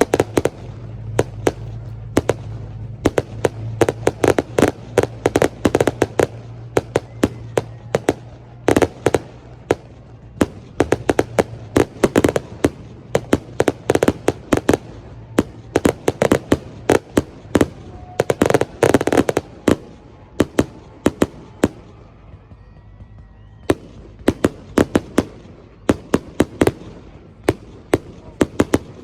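Aerial fireworks display: a long run of sharp bangs and crackles, coming in dense volleys with brief thinner stretches between them.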